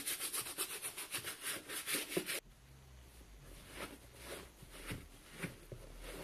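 Hand brush scrubbing a soapy work boot in quick, even strokes, about five a second, which cut off suddenly about two and a half seconds in. After that, a cloth is rubbed and wiped over the wet boot, much more quietly.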